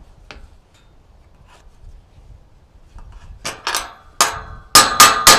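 Metal striking metal on steel gate hardware as a bolt is worked into place. A few faint clicks come first, then from about three and a half seconds in a run of sharp, ringing clanks, the loudest near the end.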